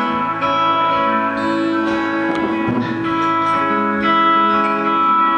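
Live band playing an instrumental passage: acoustic guitar and electric guitar over keyboard, with long-held notes.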